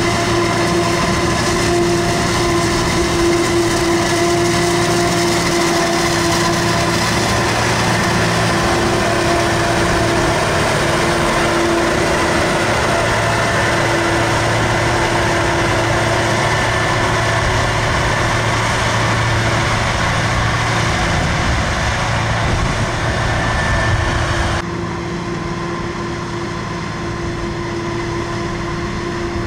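Heavy farm machinery working in a maize harvest: a loud, steady engine drone with a constant whine on top. About 25 seconds in, the sound changes abruptly and becomes quieter and duller.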